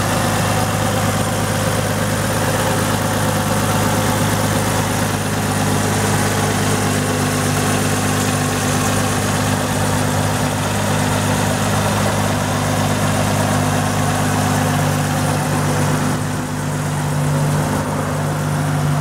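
2008 Nissan Maxima's 3.5-litre V6 engine idling steadily, heard up close with the hood open.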